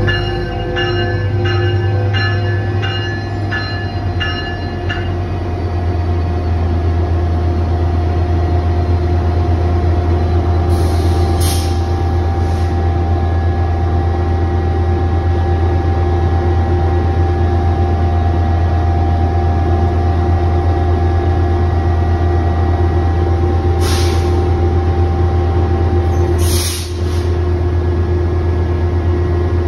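Metrolink F125 diesel locomotive pulling into the platform with its bell ringing about twice a second, the bell stopping about five seconds in. After that the engine runs with a steady low drone, broken a few times by brief bursts of hiss-like noise.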